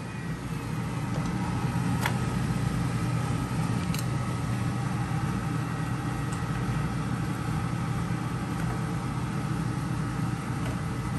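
Steady low mechanical hum of a running kitchen appliance or fan, with a thin high whine over it. Two light clicks about two and four seconds in, as a metal serving utensil knocks against the foil pan and plate.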